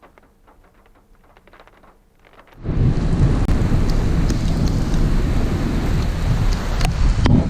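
Thunderstorm rain and wind. At first only faint scattered ticks of raindrops. About two and a half seconds in, a loud, steady rush of rain and wind cuts in suddenly, with wind rumbling on the microphone and a few sharp taps near the end.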